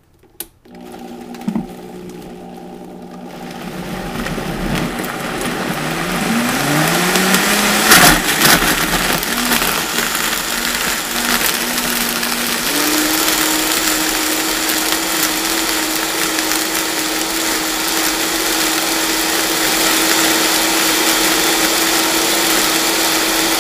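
Vita-Mix blender motor starting at low speed and then run up through its speeds while blending a thick green smoothie of leaves, fruit and powders. A sharp knock comes about eight seconds in. The motor steps up to a higher pitch about twelve seconds in and runs steadily at high speed.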